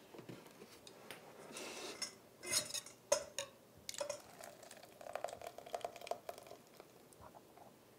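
Glass measuring cup clinking against a stainless steel mixing bowl while buttermilk is poured in. There are a few sharp clinks about halfway through, then a brief ringing from the bowl.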